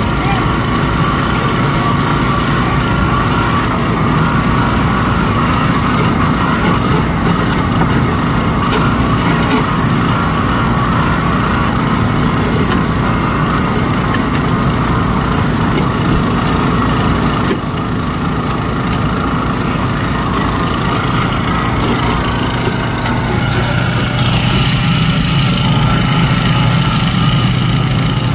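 Small gasoline engine of a portable hydraulic rescue-tool power unit running steadily, with crunching and cracking over it as a car's broken window and door are worked. The engine note grows stronger near the end.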